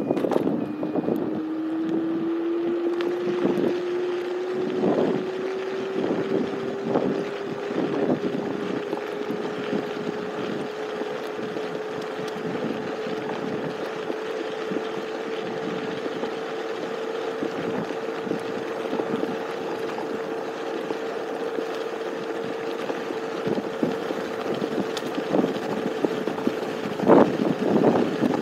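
Electric scooter's motor whining, rising in pitch as it picks up speed over the first ten seconds or so and then holding a steady pitch while cruising. Wind rushes over the microphone throughout, with a few louder rough patches, the strongest near the end.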